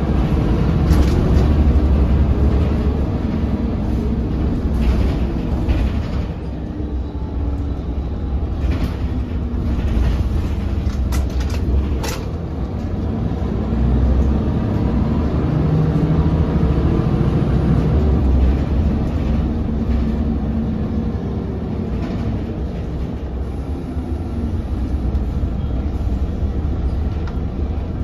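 Cabin sound of a 2001 Scania L94UB bus (Custom Coaches CB60 body) under way, heard from the rear seats: the rear-mounted diesel engine drones and rises and falls in pitch several times as the bus speeds up and slows in traffic. A few sharp rattles and clicks from the body and fittings come in the middle.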